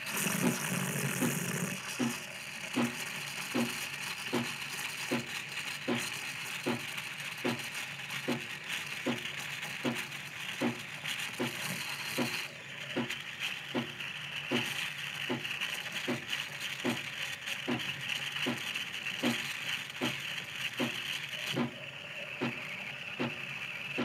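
Steam wand of an Ascaso Dream Up thermoblock espresso machine hissing into a pitcher of milk as it is frothed, with a regular pulsing from the machine about three times every two seconds. The hiss loses its brightest edge about halfway through.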